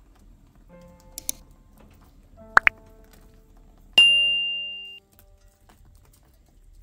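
Soft background music, with two quick clicks about two and a half seconds in, then a single bright bell ding that rings out for about a second. These are the sound effects of a subscribe-button and notification-bell animation.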